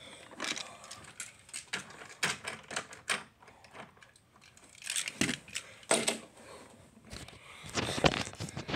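Scattered light clicks and taps from small hard objects being handled, with two somewhat louder knocks about five and six seconds in.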